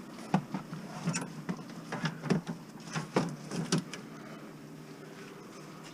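A series of irregular light knocks and clacks, about a dozen over four seconds, then only a faint steady background hum.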